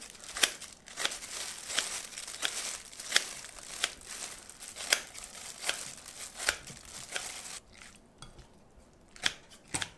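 Kitchen scissors snipping through aged, wet kimchi cabbage, a sharp snip roughly every half-second to second over a wet rustling of the leaves. Near the end the snipping thins out to a couple of cuts.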